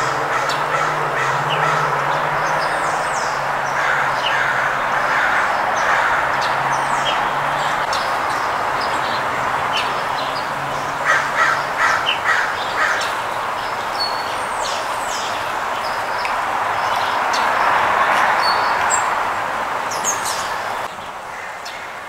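Sparrows chirping in short, high notes throughout. A California scrub-jay gives a quick run of harsh, rasping calls about eleven seconds in.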